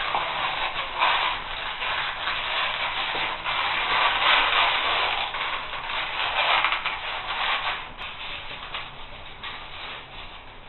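Fan fold foam rubbing and scraping against a mold as a hand presses and shifts the formed piece, in uneven rustling swells that grow quieter after about eight seconds.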